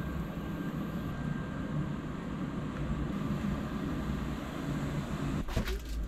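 Steady low rumble of a truck repair garage, the kind of sound a vehicle running somewhere in the shop makes, with a few sharp clicks or knocks near the end.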